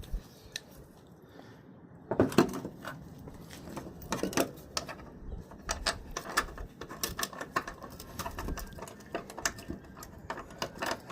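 Irregular metallic clinks, clicks and knocks of hand tools working on a truck door hinge, starting about two seconds in.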